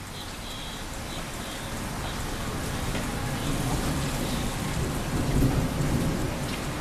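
Steady rain hiss, with a low rumble that swells from about three seconds in and is loudest near five seconds.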